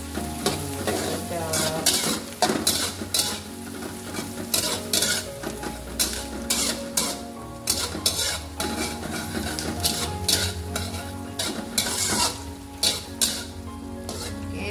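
Metal slotted spatula scraping and clattering against a steel wok in irregular strokes while garlic, shallots and dried shrimp sizzle in hot oil.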